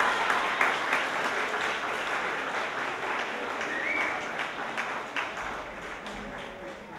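Theatre audience applauding at the end of a ballet number, the clapping slowly dying away, with a short call from the crowd about four seconds in.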